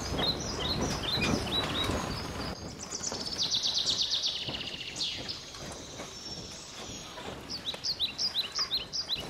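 Songbirds chirping and trilling, with a fast trill about three seconds in and a run of short falling chirps near the end. For the first couple of seconds a steady rush of flowing river water lies under them, then stops abruptly.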